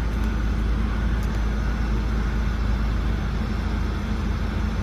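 Steady low engine rumble with an even hiss over it: FDNY fire apparatus running while its hose sprays water.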